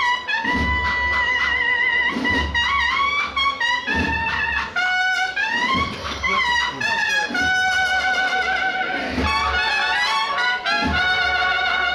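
Brass band playing a slow processional march, trumpets carrying a sustained melody with vibrato over bass drum beats that land roughly every second and a half to two seconds.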